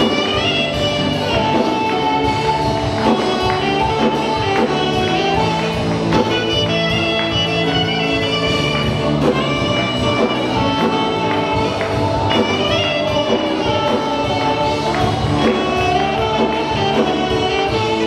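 Live church worship music: a band plays a steady, continuous song while the worship leader and choir sing.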